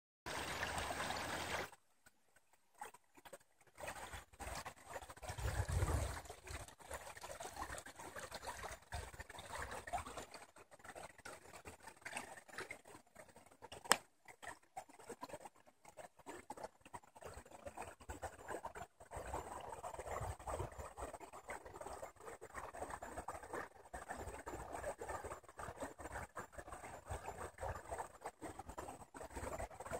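Faint trickle of shallow river water running among stones under thin shore ice. A few low rumbles come and go, and there is one sharp click about halfway through.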